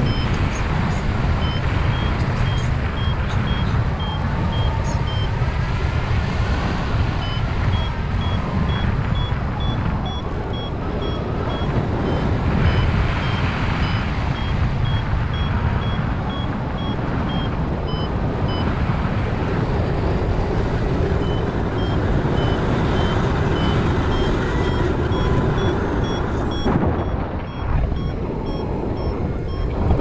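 Wind buffeting the microphone of a paraglider in flight, with a paragliding variometer beeping in short repeated tones that step up and down in pitch and pause now and then. The beeping signals that the glider is climbing in lift.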